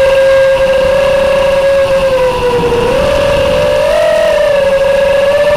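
FPV quadcopter's DYS 2206 brushless motors and props whining in flight, heard close from the onboard camera. The pitch dips about two and a half seconds in, then rises and falls again around four seconds as the throttle changes.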